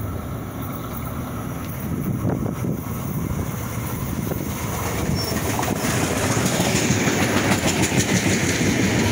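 Long Island Rail Road electric multiple-unit commuter train approaching and running past, growing steadily louder, with wheels clacking over the rail joints more and more densely in the second half.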